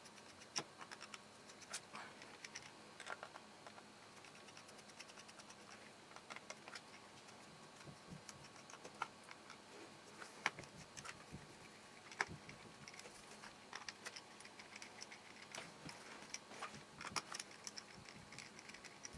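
Faint, irregular clicks and scratches of a small precision screwdriver working the tiny screws out of a Samsung Galaxy S3's frame, with a few louder ticks as the bit seats or a screw is set down.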